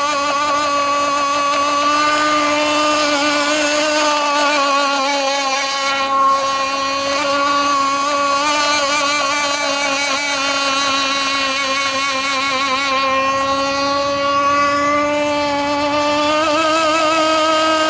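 Radio-controlled racing boat fitted with a 7316 motor running flat out across the water: a steady, loud high whine that wavers slightly in pitch, shifting a little higher near the end as the boat sweeps close.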